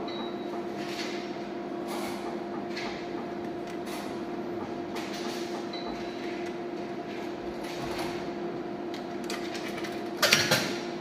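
Steady hum from a coin-operated bar slot machine, with faint scattered clicks. About ten seconds in comes a brief, loud metallic clatter as a coin drops into the machine's coin slot, putting a euro of credit back on.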